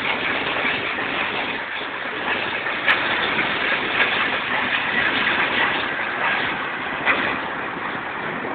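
Steady vehicle running noise, an even rumble and hiss with no clear engine note. A sharp click comes about three seconds in, and a fainter one near the end.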